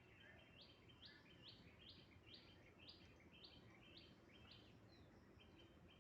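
Faint bird chirping: a run of short high notes repeating about twice a second, over lower chirps in quick bursts.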